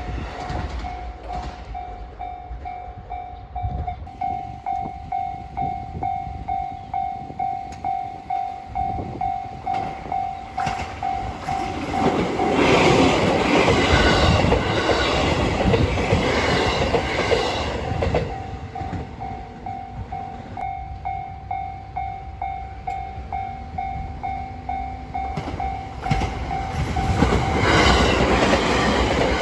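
Japanese level-crossing warning bell ringing in a steady, evenly repeated ding, with a train passing over the crossing loudly in the middle, wheels clattering on the rails, and another train arriving near the end.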